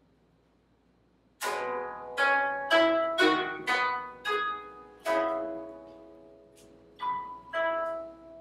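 Koto (Japanese zither) being plucked: after a near-silent start, a run of single plucked notes begins about a second and a half in, each ringing and fading. The notes come in quick succession, then one rings out longer before the plucking resumes near the end.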